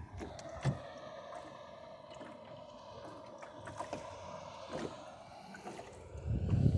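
Water gurgling along the hull of a small sailboat moving slowly, with a few light ticks and knocks from the boat. Wind rumbles on the microphone near the end.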